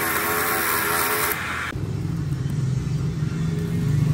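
Straight die grinder spinning a sanding disc against the bore of a cast iron engine block, a loud steady whine with hiss. It cuts off abruptly a little under two seconds in, and a low steady hum carries on for the rest.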